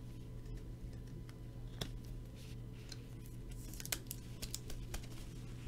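Faint handling noise of baseball cards and plastic card holders being moved about, with scattered light clicks, a cluster of them about four seconds in, over a low steady electrical hum.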